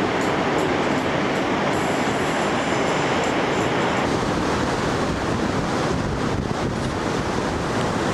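Ocean surf rushing steadily, a continuous wash of breaking waves with no let-up.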